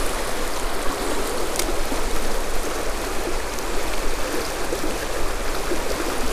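Shallow creek water running steadily over rocks in a riffle.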